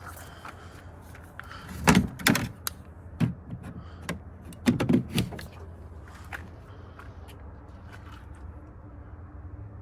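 Two clusters of loud knocks and clunks, about three seconds apart, with a few lighter clicks, over a steady low hum.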